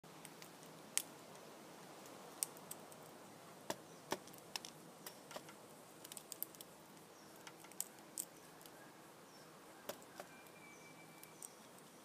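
Irregular sharp clicks and taps as a male Australian king parrot feeds from a metal seed tray, cracking seeds in its beak, about twenty in all and bunched around the middle. Faint short chirps of other birds sound in the background.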